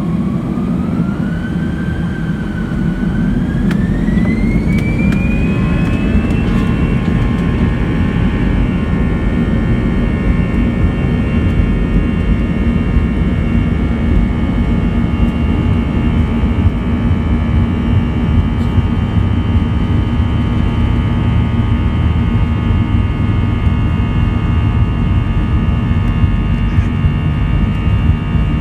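Airbus A320-200 jet engines spooling up to takeoff thrust, heard from inside the cabin: a whine rises in pitch over the first several seconds, then holds steady over a loud low rumble.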